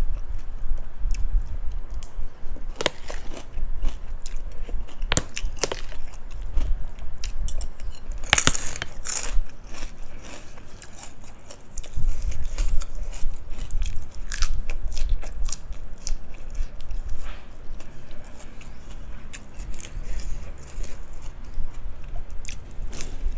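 Close-miked eating: steady chewing with scattered sharp crunches of crisp pork cracklings and cucumber, the loudest and longest crunch a little past a third of the way through.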